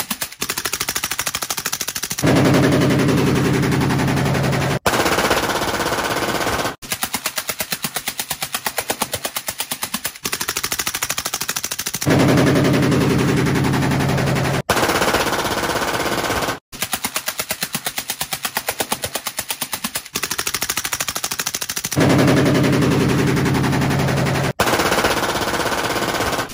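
Fully automatic firearms firing long, rapid bursts, shot following shot, broken by several short pauses between bursts. Three stretches are louder than the rest, a little after the start, around the middle and near the end.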